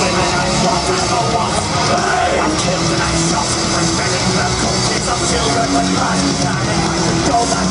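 Loud rock music playing continuously.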